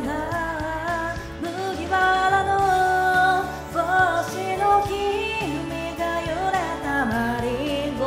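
A woman singing a pop song over a karaoke backing track with a steady beat.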